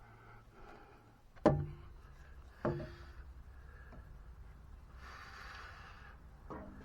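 Two sharp knocks about a second apart while working on the starter bolts, the first much louder, each with a short ring after it. Near the end there is about a second of scraping.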